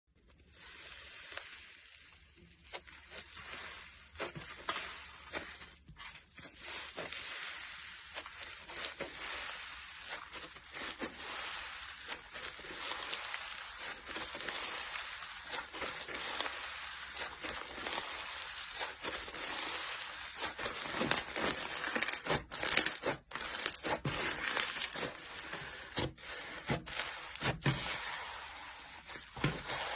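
Slime being squeezed and worked by hand, making a dense stream of crackling clicks and pops that grows louder about two-thirds of the way through.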